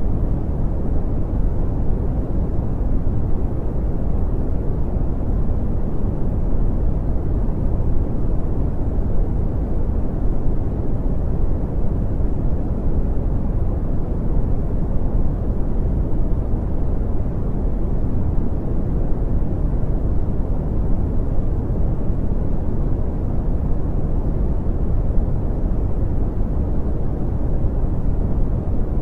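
Brown noise: a steady, deep rumbling hiss, strongest in the low end and fading off toward the highs, unchanging throughout.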